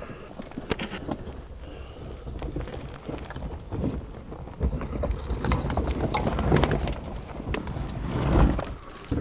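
Irregular footsteps, scuffs and knocks of people moving over rubble in a cramped tunnel, with rumbling handling noise on the microphone. It grows busier from about halfway, and the loudest rumble comes near the end.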